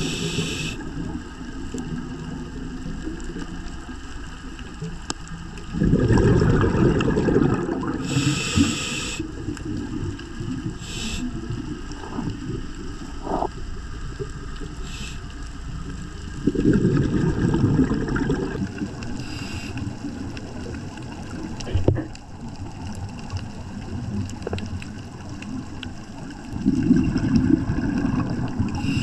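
Scuba diver breathing through a regulator underwater: short hisses on the inhale and three rumbling bursts of exhaust bubbles about ten seconds apart.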